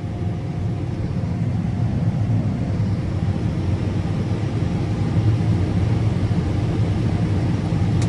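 Combine running while harvesting soybeans and unloading on the go, heard from inside the cab: a steady low machine drone of engine, threshing works and unloading auger.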